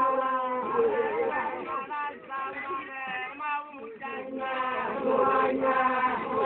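A group of men and women singing together in the Arfak dance song, holding long chanted notes; the singing thins out and grows quieter a couple of seconds in, then swells back near the end.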